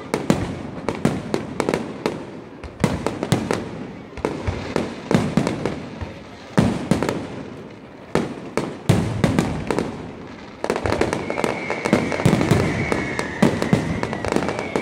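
Aerial fireworks display: shells burst with repeated sharp bangs, some in quick clusters, with short lulls between. From about two-thirds of the way through, a steady high whistle sounds over the bangs.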